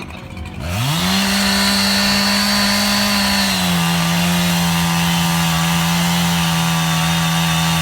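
Echo CS-7310P two-stroke chainsaw revving up from a lull about a second in and running at full throttle. Its pitch steps down slightly at about three and a half seconds as the chain takes the load of cutting through the log.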